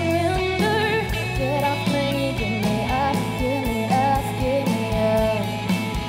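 A woman singing with a rock band: electric guitars and drums under her voice, the melody wavering in pitch over steady low notes and regular drum hits.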